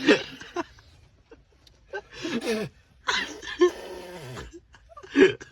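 A man sneezing and retching, close to vomiting: several strained vocal bursts separated by short gaps, the longest about three seconds in, lasting over a second and sliding down in pitch at its end.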